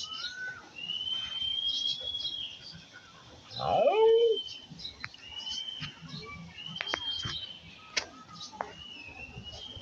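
A dog whining in several drawn-out high whines. About four seconds in comes one louder cry that rises and falls, and a few sharp clicks follow.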